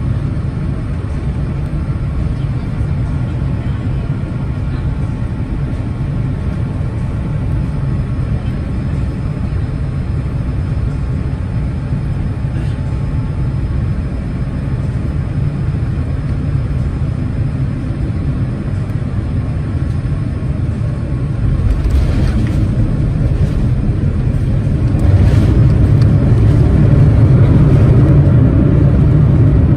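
Cabin noise inside a Boeing 787-9 airliner coming in to land: a steady low rumble of engines and airflow. About 21 seconds in there is a short jolt-like sound, typical of touchdown, and the rumble gets louder, louder again from about 25 seconds as the plane rolls along the runway.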